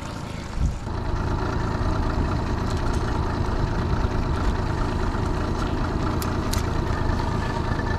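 Honda 30 hp four-stroke outboard motor running steadily at trolling speed. Two light clicks come about six seconds in.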